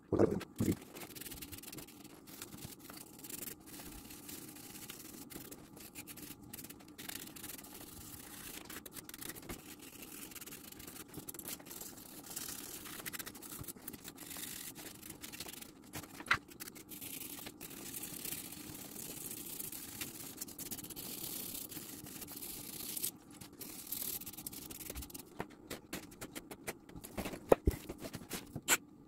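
Hand-sanding the dry deadwood of a bonsai trunk with a small sandpaper stick: a continuous scratchy rubbing, with a few sharp knocks of the tool against the wood.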